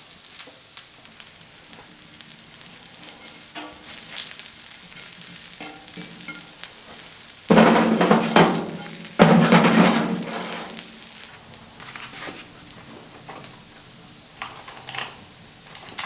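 Food sizzling in a hot pan, with stirring and light utensil clicks. About halfway through the sizzle surges loudly twice, each surge fading over a second or two.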